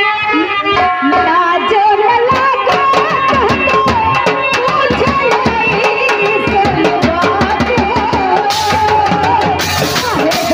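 Live folk stage music: a woman sings a wavering melody into a microphone over quick, steady hand-drum strokes. A high hiss joins near the end.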